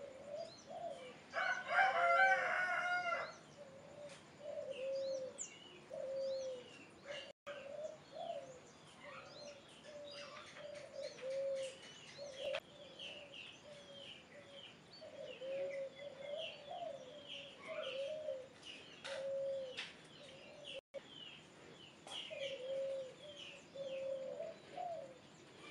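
Birds calling: low cooing notes, typical of doves, repeat throughout, with smaller birds chirping higher over them. A louder call with a stack of harmonics comes about two seconds in and lasts about a second and a half.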